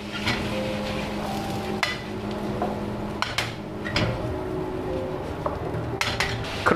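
Wooden spatula scraping and knocking against a non-stick frying pan as diced vegetables are stirred, with a few sharp knocks spread through. A low steady hum runs under the first three seconds.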